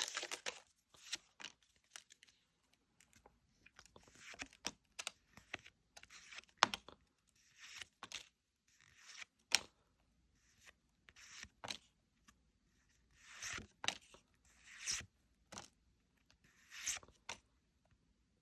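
Foil booster pack wrapper tearing and crinkling, and trading cards being slid and flicked through by hand: short, scattered rustles and clicks with quiet gaps between them.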